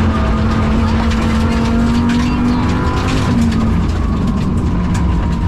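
Rally car engine under load heard from inside the cabin, misfiring and down on power, its pitch climbing gently for about three seconds and then dropping back. Tyre and gravel noise runs underneath, with sharp ticks of stones hitting the car.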